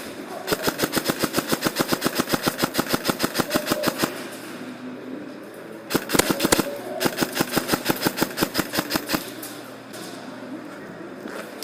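Airsoft electric rifle (AEG) firing on full auto: two long bursts of rapid, even shots at about ten a second, with a short volley of louder, irregular cracks between them about six seconds in.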